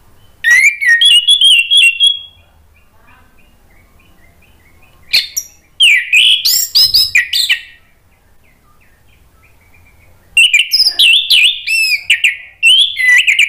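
Orange-headed thrush singing loud bursts of quick, varied whistled phrases, three times, with short pauses between them.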